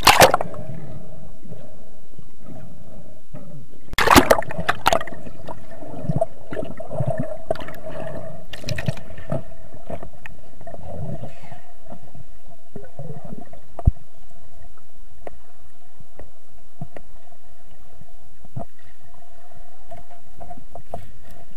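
Underwater sound heard through a camera housing while diving: a steady hum with loud bubbling and gurgling bursts at the start and again about four seconds in, and scattered sharp clicks and knocks.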